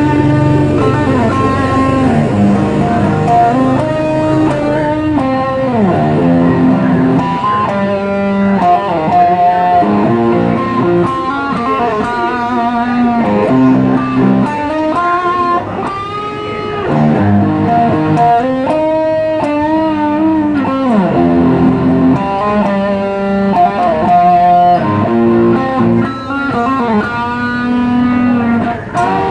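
Music led by a guitar playing a melodic line with bent notes and vibrato.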